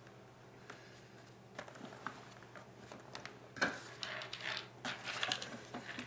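Handling noise from a plastic laptop being turned round on carpet: scattered light taps, clicks and rustling, with one sharper knock about halfway through, over a faint steady hum.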